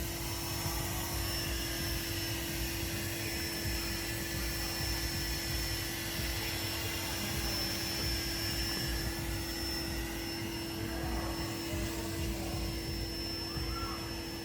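Steady mechanical drone with a constant low hum and a faint high whine, unchanging throughout.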